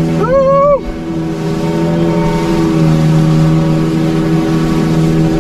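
Jet ski engine running steadily under way, an even drone over the rush of water. A short high whoop comes just under a second in.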